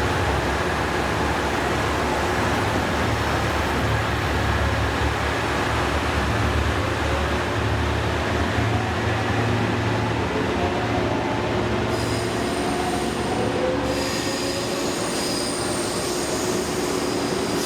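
Express train running on the rails close by, a dense steady rush of wheel and rail noise over a low rumble. About twelve seconds in the rumble drops away and thin, high wheel-squeal tones come in.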